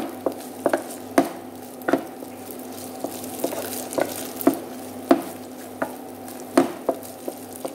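Wooden spatula scraping and knocking against a nonstick frying pan, stir-frying flaked dried fish and green chilies, with irregular knocks over a steady sizzle.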